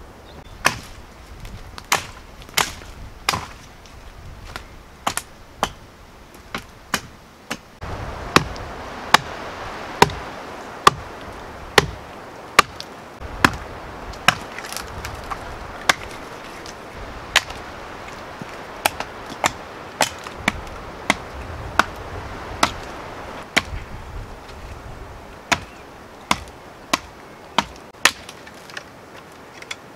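Hatchet chopping into wood: a steady series of sharp chops, about one a second.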